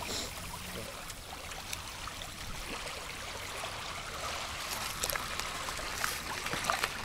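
Small waves lapping and washing against a pebbly shore, a steady watery rush, with a few faint clicks in the second half.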